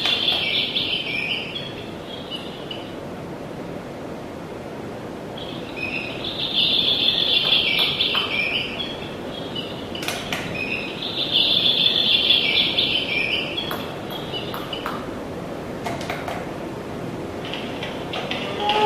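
Recorded bird chirping played through the small speaker of the electronic dragon-rock unit of Ravensburger's 'Wo war's?' board game, in three bursts a few seconds apart, with a few plastic button clicks between them. The bird call is a game clue telling the players where the thief is hiding.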